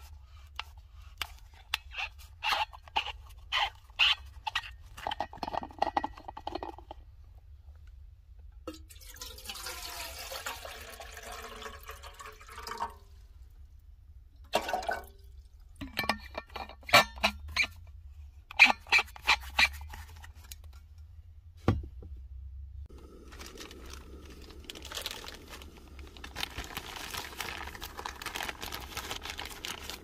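Water poured from a jug into an aluminium camping kettle, gurgling for a few seconds, among clicks and knocks of the jug and kettle being handled. Near the end, a plastic bag of paper coffee filters crinkles as it is pulled open.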